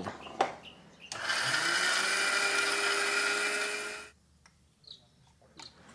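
Electric mixer grinder with a stainless steel jar grinding dried red chillies and dry-roasted spices into powder. About a second in, the motor spins up with a rising whine, then runs steadily for about three seconds and cuts off suddenly.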